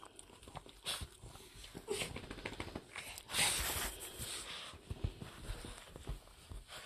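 Several small dogs moving about on a bed: rustling of the bedding, scattered light thumps and a dog's breathing, with a louder rush of rustling about three seconds in.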